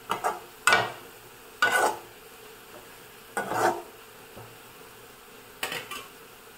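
A perforated metal skimmer scrapes and stirs sliced onions in a metal kadai about five times, over the steady sizzle of the onions frying in ghee and oil. The onions are nearly golden brown and need a little more frying.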